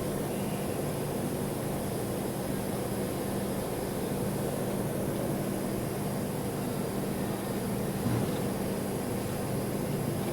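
A steady mechanical hum over an even hiss, with one short low thump about eight seconds in.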